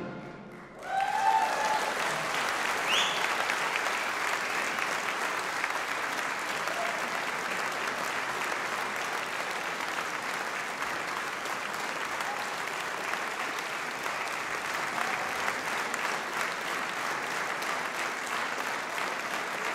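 Applause from a large concert audience, breaking out about a second in and holding steady, with a few shouts and a whistle near the start.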